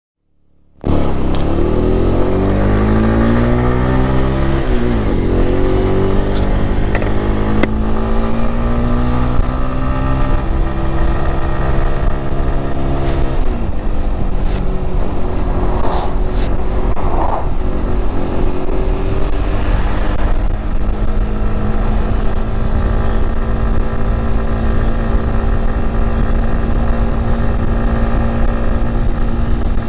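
Motorcycle engine running under way, its note climbing and dropping sharply at gear changes about five and thirteen seconds in, then holding steady at cruising speed. Wind rushes over the camera microphone throughout.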